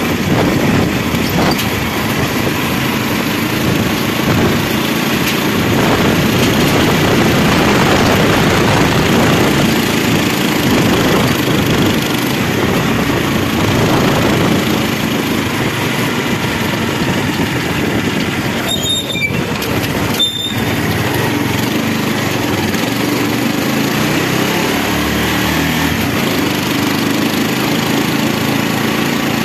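Engine of the vehicle carrying the camera, running steadily as it drives slowly along the street, mixed with wind and road noise; the sound briefly thins out twice about two-thirds of the way through.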